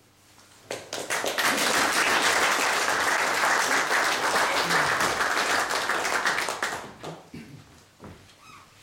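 Audience applauding after a speech: the clapping starts about a second in, holds steady for several seconds, then dies away near the end.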